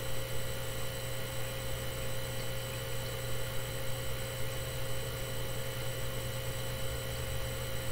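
Steady low electrical hum with a fainter, higher steady whine over light hiss: room tone.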